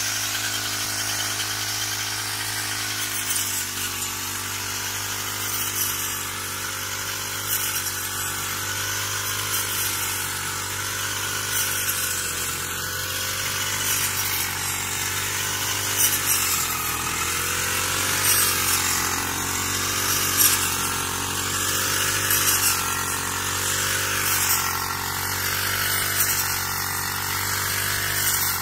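Small petrol engine of a shoulder-slung brush cutter with a wheat-reaper attachment running steadily at cutting speed, its pitch wavering a little under load, with short crackles now and then as the blade cuts through standing wheat stalks.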